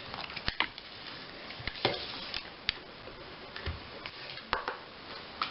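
Scattered light clicks and taps, about five in all, from the handling of Kinder Surprise plastic capsules and small toy figures.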